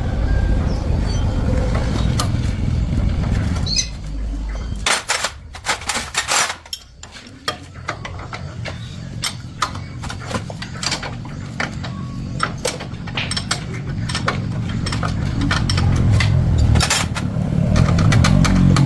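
A motorcycle engine running with a low rumble, fading about four seconds in and building back up over the last few seconds. In between, a quick run of sharp metallic clinks and taps, like tools on metal parts.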